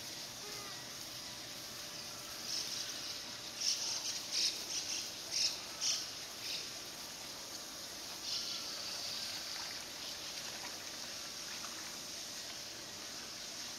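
Steady hiss of water running from a garden hose, broken by a quick series of short, sharp hissing spurts a few seconds in and one longer spurt a little later.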